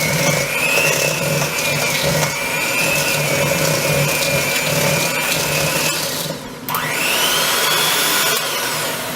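Electric hand mixer running, beating a creamed butter, sugar and egg-yolk mixture in a bowl with a steady motor whine. About six seconds in it stops briefly, then starts again with a rising whine and winds down near the end.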